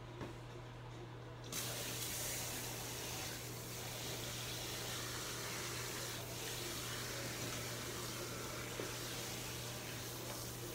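A steady rushing hiss, like running water or blown air, switches on suddenly about a second and a half in and carries on unchanged over a low steady hum.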